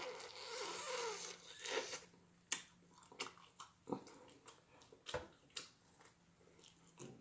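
Close-miked eating of juicy baked turkey wing: a wet sucking, smacking sound for about two seconds, then scattered wet clicks and smacks of chewing.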